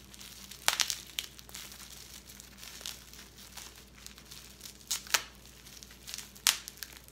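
Plastic bubble wrap crinkling and tearing as it is cut and pulled open with a small knife, with sharp crackles about a second in, around five seconds, and after six seconds.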